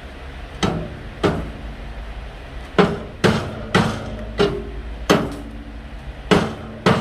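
Hammer striking the steel body of a homemade wood stove, about nine blows at an uneven pace, each leaving a short metallic ring.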